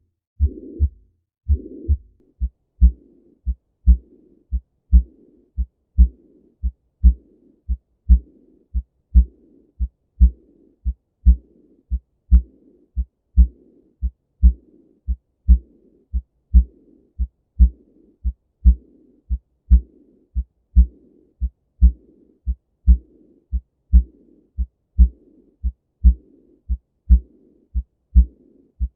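An abnormal human heartbeat: a steady lub-dub at about one beat a second, with a noisy murmur filling the gaps between the beats. The murmur is louder over the first two beats.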